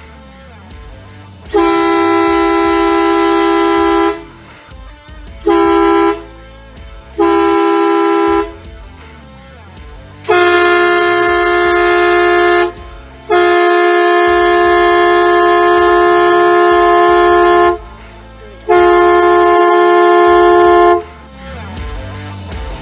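Kleinn bolt-on air horns on a 2018 Jeep Wrangler JL, fed by an onboard compressor and air tank, sounding in six loud blasts. Each blast holds two close pitches together, steady and unchanging. Two short toots come among longer blasts, the longest lasting about four seconds.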